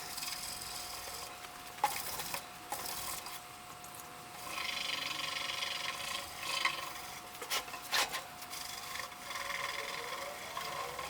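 Steel wool wetted with mineral spirits scrubbing the painted metal side of a tool chest, in uneven scratchy strokes with short pauses and a few light knocks.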